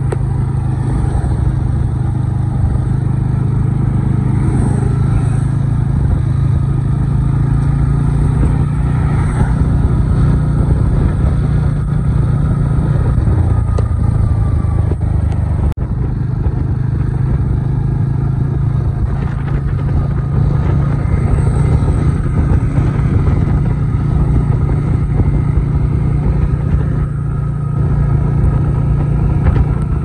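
Motorcycle engine running steadily as the bike is ridden, its note dipping briefly near the middle.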